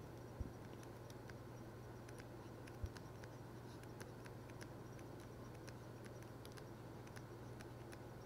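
Faint ticks and light scratching of a stylus on a pen tablet during handwriting, over a low steady hum. Two soft low thumps come, one just after the start and one about three seconds in.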